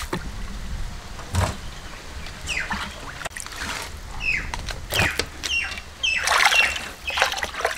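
Water sloshing and splashing in a steel basin as hands wash chunks of tuna and lift them out, with several sharp splashes. Several short, falling bird chirps come in between.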